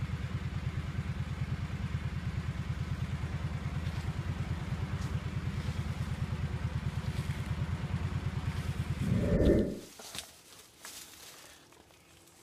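An ATV engine idling with an even low chug, swelling briefly and then shutting off about nine and a half seconds in. Faint rustling and small clicks follow.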